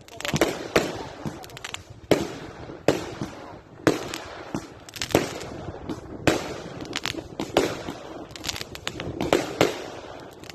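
Aerial fireworks bursting overhead in a steady series of sharp bangs, about one or two a second, each followed by a brief echo and crackle.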